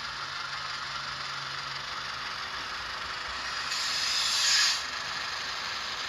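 Model 44-tonner diesel locomotive sound from its ESU decoder through a small speaker: a steady hiss under the running model, with a louder burst of air hiss lasting about a second, about four seconds in.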